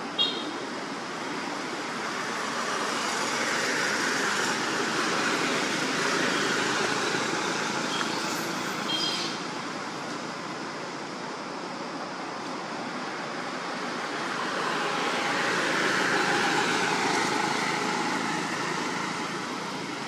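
Road traffic noise that swells twice as vehicles pass, with a few brief high chirps about a quarter-second in and again about eight seconds in.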